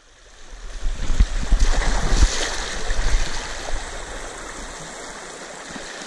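Mountain stream water rushing and splashing over rocks, loudest in the first couple of seconds with a few low bumps, then settling into a steady rush.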